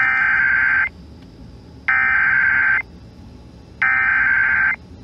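Emergency Alert System (SAME) digital header: three identical bursts of buzzing, modem-like data tones, each just under a second long and about a second apart. The bursts open a broadcast alert, here a flash flood warning.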